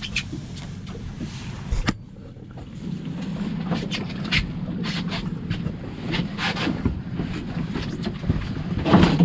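A fishing boat's motor runs with a steady low hum, with wind on the microphone and scattered short knocks and splashes. The sound drops suddenly about two seconds in, then the motor hum builds back up.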